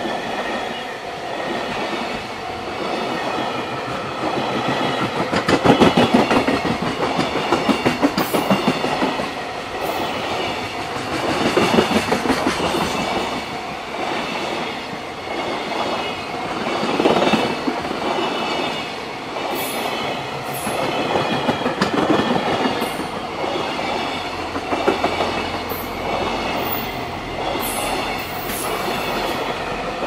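A JR Freight container train's wagons (Koki container flatcars) rolling past at speed, their wheels clattering over the rail joints. The clatter swells and eases every few seconds as groups of wheels pass.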